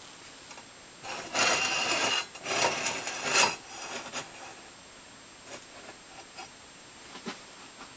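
Wooden runner carrying a dial indicator scraping along a table saw's steel miter slot, in two rubbing strokes of about a second each a little after the start, then a few faint ticks.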